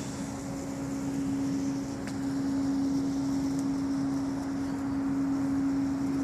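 A steady, unexplained low hum holding one pitch without change, over a faint rushing background.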